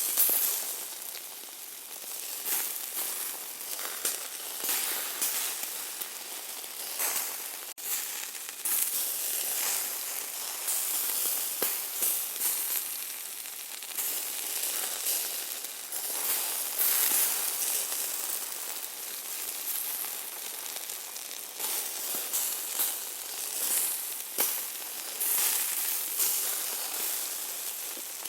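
Hamburger meat sizzling as it cooks: a steady frying hiss with irregular crackles and spits that swell and fade.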